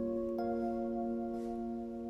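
Background music: soft, sustained mallet-percussion notes like a vibraphone, a new chord struck about half a second in.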